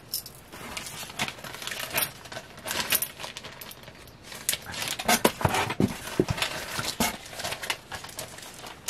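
Costume jewelry, beads and metal pieces, clinking and rattling in irregular small clicks as it is handled and sorted.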